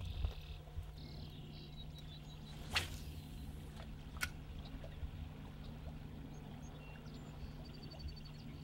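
Faint streamside quiet with a steady low hum; about three seconds in, the short swish of a spinning rod being cast, followed a second or so later by a sharp click.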